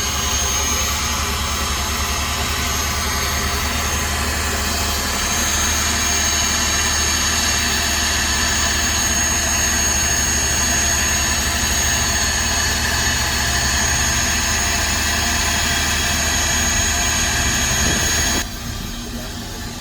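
Heavy diesel machinery running steadily at a constant pitch with a high whine over it, at a soil-loading site; near the end it drops abruptly to a quieter engine sound.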